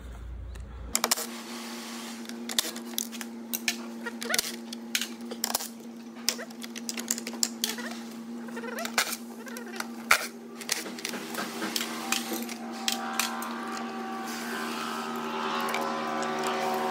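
Irregular metallic clicks and clinks of tools, bolts and connectors being handled on an electric-car battery pack, over a steady pitched hum that grows a little louder near the end.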